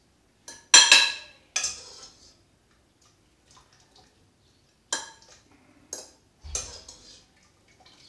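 Cutlery clinking against plates as people eat, about six sharp clinks with a short ring. The loudest come about a second in, with more spread through the rest.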